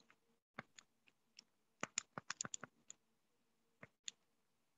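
Computer keyboard keys clicking, scattered at first, then a quick run of keystrokes about two seconds in and two more near the end, over a faint steady hum.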